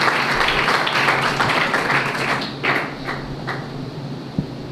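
A congregation clapping, dense at first and thinning out to a few last scattered claps about three seconds in, followed by a couple of short low thumps near the end.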